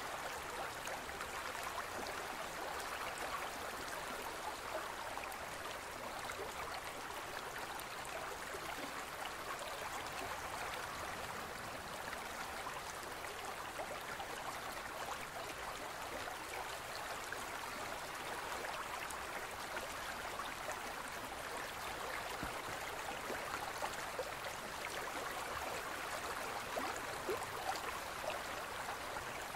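Small stream running over rocks: a steady, even rush of water dotted with many tiny splashes.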